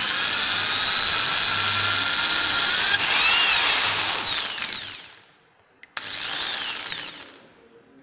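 Corded electric drill whining as its bit bores into plywood. The whine steps up in pitch about three seconds in, then spins down and stops. After a click, the drill is run briefly once more, rising and falling in pitch.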